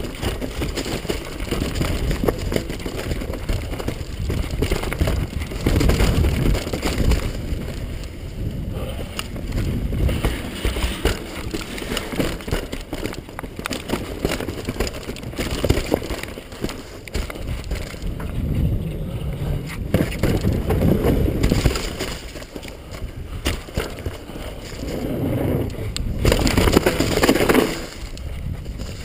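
Downhill mountain bike ridden fast over a rough trail of roots and rocks, heard from a camera on the rider: continuous rattling and knocking of the bike and tyre noise on dirt and stone, with a louder rush of noise near the end.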